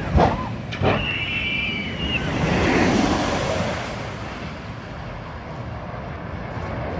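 Wind buffeting the microphone: a steady rumbling rush that swells about three seconds in and then eases. Two sharp knocks come in the first second, and a brief high whistling tone sounds between the first and second seconds.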